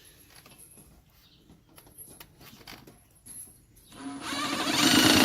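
Faint clicks and handling knocks, then about four seconds in a power drill starts up and runs, building quickly to full speed.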